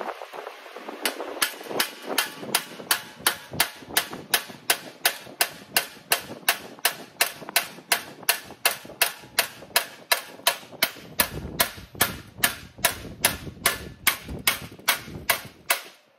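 Hand hammer striking sheet metal in a steady rhythm of about three sharp blows a second, hammering a shrinking tuck down into itself so that the panel edge shrinks.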